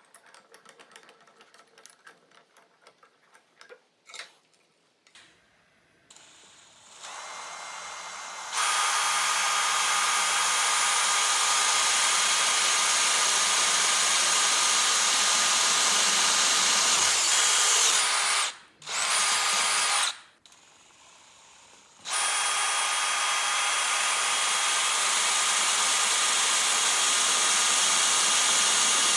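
Electric power tool's motor running at high speed with a steady high-pitched whine, after a few seconds of light handling clicks. It stops twice briefly, the second time for about two seconds, then runs on.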